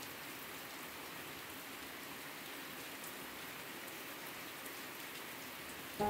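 Steady rain falling, an even hiss with faint scattered drop ticks. Music begins right at the end.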